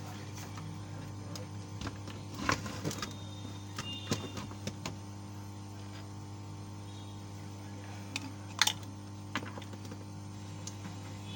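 Scattered sharp clicks and light knocks of small laptop parts being handled on a workbench, the loudest about two-thirds of the way in, over a steady low electrical hum.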